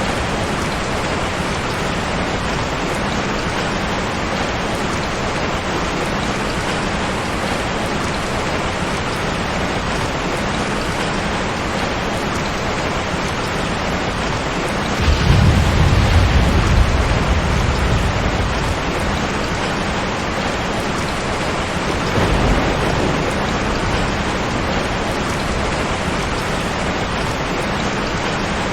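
Steady heavy rain. About halfway through, a low roll of thunder swells up and fades away over several seconds, and a fainter rumble follows a few seconds later.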